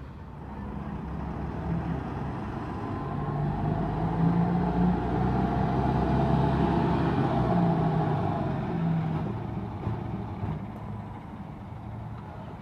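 A city route bus driving past close by, its engine drone and tyre noise growing louder to a peak in the middle, then fading as it pulls away.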